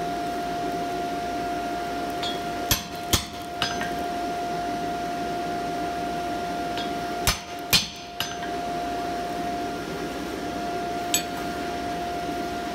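Hammer blows on a hot-cut tool splitting a red-hot steel tong blank down the middle, a few sharp metallic strikes in groups of two or three. A steady hum runs underneath.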